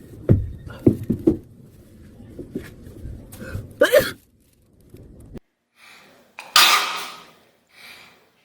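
A young woman sneezing with a cotton swab in her nose: several sharp sneezes and coughs, then a short silence and one loud, hissy sneeze near the end.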